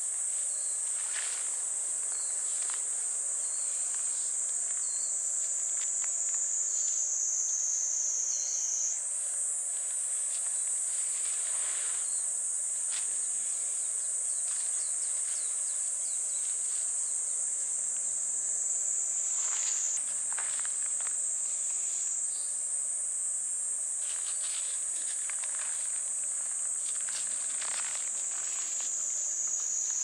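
A chorus of cicadas buzzing steadily at a high pitch, the pitch slowly sagging and then jumping back up a few times. Faint rustles come and go beneath it.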